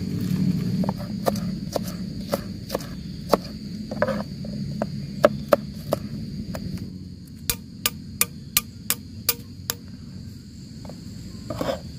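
A large knife chopping vegetable stalks on a plastic cutting board: scattered knocks, then a quick even run of sharp chops, about three a second, in the second half. Crickets or other insects keep up a steady high drone throughout.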